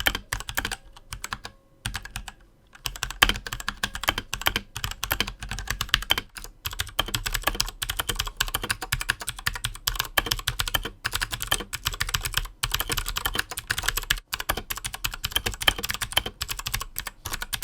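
Mechanical keyboard with Gateron KS switches being typed on rapidly: a dense, continuous run of keystroke clacks, broken by a short pause about two seconds in.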